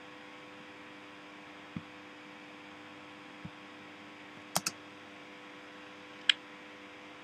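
Steady low electrical hum with a few faint steady tones, broken by scattered clicks from working a computer: two soft thumps early on, a sharp double click about halfway and a single click near the end.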